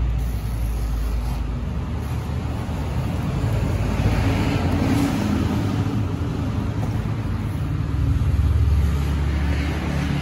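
Low, steady rumble of a motor vehicle running, swelling a little about eight seconds in.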